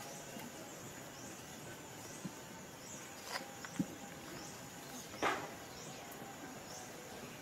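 Outdoor ambience with short high-pitched chirps recurring about once a second, and a few sharp knocks and scuffs, the loudest about five seconds in.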